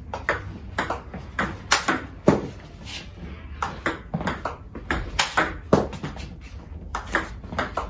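Table tennis rally: a celluloid-type ball clicking sharply off the table and off a paddle faced with Xiom Omega VII China tensor-tacky rubber, a quick run of crisp strikes and bounces, two or three a second.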